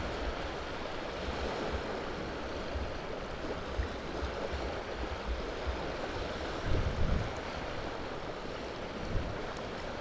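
Wind over open water: a steady rushing hiss with gusts rumbling on the microphone, the strongest about seven seconds in.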